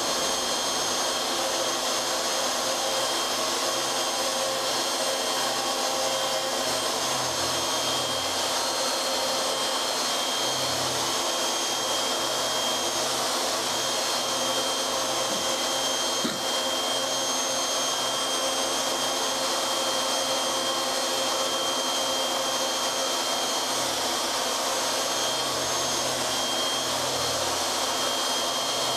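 CNC router running a machining pass: a steady high whine and rushing noise from the spindle cutting the workpiece, with a lower hum that comes and goes as the axes move.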